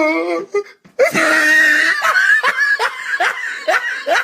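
A loud, hearty human laugh that sets in about a second in and breaks into short bursts, two or three a second. It comes after the tail end of a long, wavering drawn-out vocal cry.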